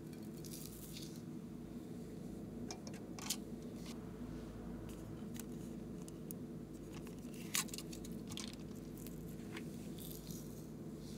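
Sparse small clicks and rustles of hands handling small plastic toy containers and dropping polymer-clay pieces into slime, with two sharper plastic clicks about three and seven and a half seconds in, over a steady low hum.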